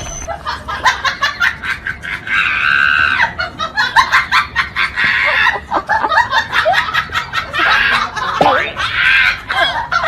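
People laughing and shrieking over a run of sharp clicks and knocks, with two longer, strained shrieks about two seconds in and near the end.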